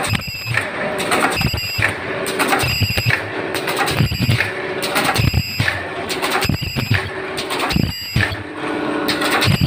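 Automatic surgical face-mask machine running: its pneumatic cylinders and ultrasonic welding heads cycle about once a second, each cycle bringing low thumps, a hiss of air and a short high whine over the steady running noise. The cycle rate is that of a line making close to 55 masks a minute.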